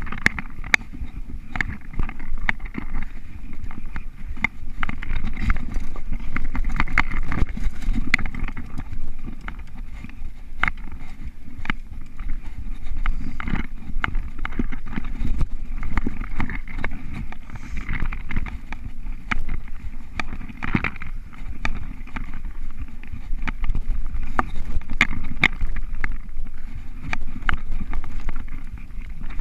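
Mountain bike ridden fast down a dirt singletrack: a steady rumble of tyres and wind noise, broken by frequent sharp clicks and rattles from the bike over bumps.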